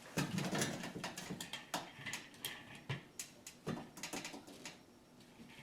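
A string of irregular clicks, taps and rustles from hands handling small parts and wires, dying down near the end.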